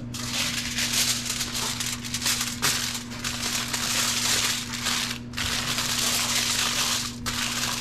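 Aluminium foil crinkling as hands fold and wrap it around a stuffed fish, a near-continuous rustle broken by a few short pauses.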